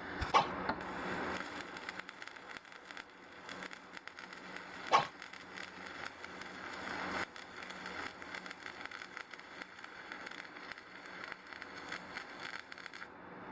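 Stick (electrode) welding arc crackling and sputtering steadily, with a sharp pop near the start and another about five seconds in. The arc cuts off suddenly near the end.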